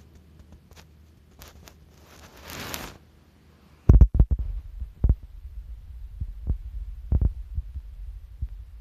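A short rustling hiss, then from about four seconds in a steady low rumble with several heavy thumps, close to the microphone.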